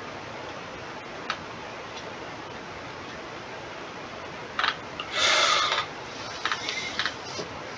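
Scattered computer-mouse clicks over a steady microphone hiss, with a brief louder rustling noise a little after five seconds in.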